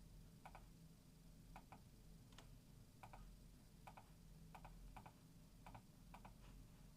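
Faint typing on a Logitech K98M mechanical keyboard with Marble switches: about a dozen irregular keystroke clicks, some in quick pairs.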